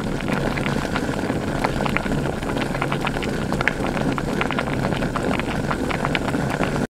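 Galbijjim (braised short ribs) bubbling and sizzling in a black pot over a gas flame: a steady hiss full of small crackles and pops. It stops abruptly near the end.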